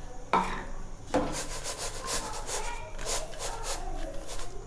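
Salt being poured and spread in a large metal cooking pot to make a bed for stovetop baking: two knocks, then a gritty rasping of many short strokes as the grains shift against the pot.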